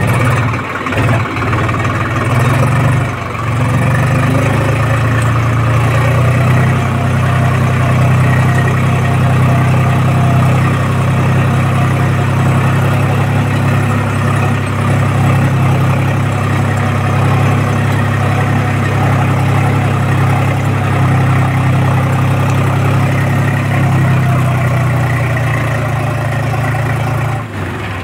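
Tractor's diesel engine running steadily under load while pulling a two-bottom mouldboard plough through soil, with a steady low hum. The level dips briefly near the end.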